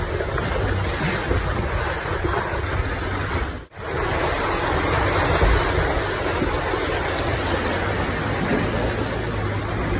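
Rushing river water and tyre splashing as a 4x4 fords a shallow rocky river, over a low, steady engine drone, with wind on the microphone. The sound drops out for a moment just under four seconds in.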